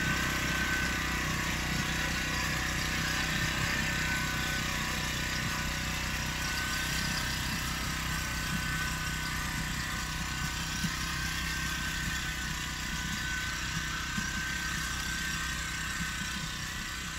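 Small engine of a walk-behind soil-working machine with a rear roller running steadily under load as it works along a bed, with a thin steady whine over the engine note; it grows slightly fainter as the machine moves away.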